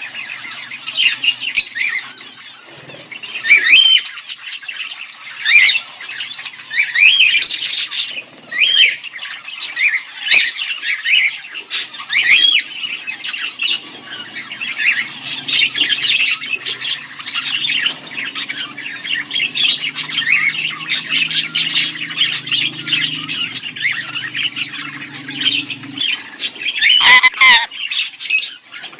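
A pair of budgerigars chirping and chattering almost continuously in quick, warbling calls. A low steady hum sits underneath through the middle of the stretch and stops near the end.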